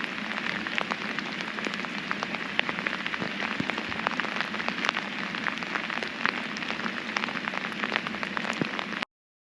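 Steady rain falling on a hard surface, with many sharp individual drop hits over the hiss; it cuts off suddenly about nine seconds in.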